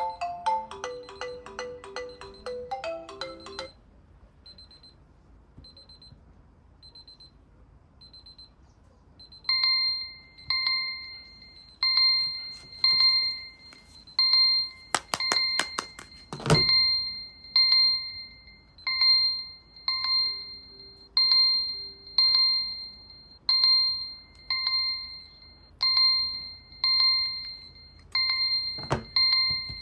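Mobile phone alarms. A melodic ringtone plays for the first few seconds and stops. Faint short electronic beeps follow about once a second, then a louder bell-like alarm beep rings about once a second and fades after each strike, broken a few times by sharp clicks of the phone being handled.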